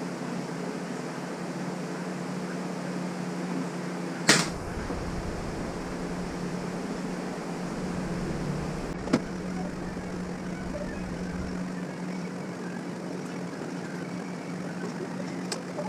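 Steady mechanical hum, like a fan or air conditioner running, with two sharp clicks, one about four seconds in and a second, softer one about nine seconds in.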